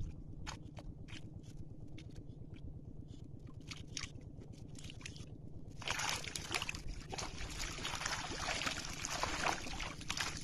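Water dripping and splashing lightly as a man handles a net and basin in a shallow muddy channel, then from about six seconds in heavy continuous sloshing and splashing as he wades forward through the water. A low steady hum runs underneath.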